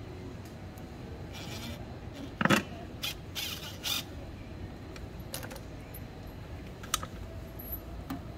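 Short metal clinks and rattles of bolts and tools while the drive-belt cover of a scooter is being unbolted. The loudest is a sharp clank about two and a half seconds in, with a few smaller clicks later, over a steady low street rumble.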